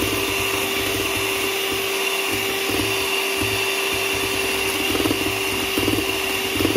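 Electric hand mixer running steadily, its beaters whipping egg whites in a stainless steel bowl for meringue: a constant motor hum with a high whine.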